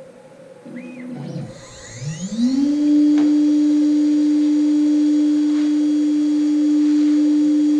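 CNC router spindle spinning up: its whine rises quickly in pitch for about half a second, then holds a loud, steady tone at its 18,000 rpm running speed. A short low rumble comes about a second before the spin-up.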